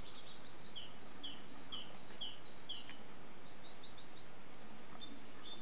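Great tit singing its two-note see-saw song: a high whistled note dropping to a lower one, repeated five times at about two pairs a second. It is followed by a quick run of four higher notes and a few scattered ones over steady background hiss.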